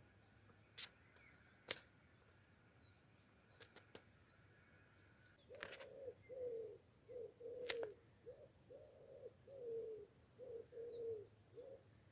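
A pigeon cooing in the forest: a run of about ten soft, low coos in a rhythmic phrase, starting about halfway through. Faint high chirps of small birds and a few sharp clicks come before it.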